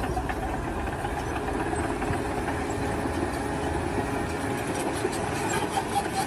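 Machinery running steadily, a dense mechanical rattle and clatter.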